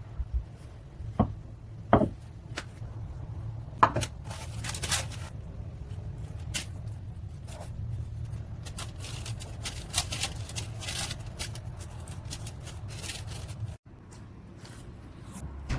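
Kitchen handling of food, likely the crisp baked pide: a few sharp knocks in the first four seconds, then a long run of crackly scraping and rustling, over a steady low hum.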